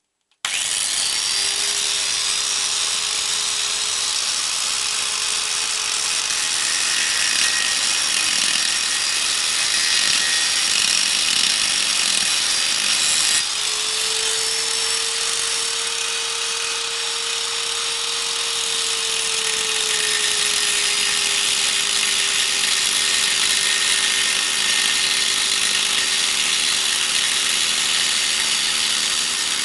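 Angle grinder switched on about half a second in, grinding through the welds on a microwave oven transformer's steel core: a loud, steady grinding hiss over the motor's whine. The whine steps up a little about halfway through and drops back a few seconds later.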